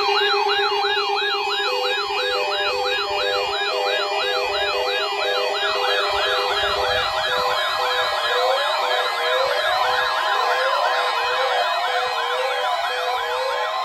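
Layered electronic siren sounds: several rapid rising-and-falling wails overlap, about two to three sweeps a second, and more layers join about six seconds in. A steady low tone runs under them and stops about seven seconds in, when a steady higher tone and a repeating short beep pattern come in.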